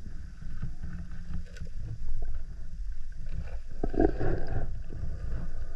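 Muffled underwater sound picked up by a camera in a waterproof housing: a steady low rumble of moving water, with a few faint clicks and a brief swishing swell about four seconds in.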